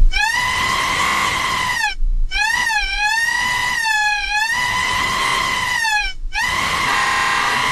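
High-pitched screaming in long held cries: one to about two seconds in, then after a short break a longer cry whose pitch wavers up and down. From about six and a half seconds in, a steadier high, buzzing tone takes over.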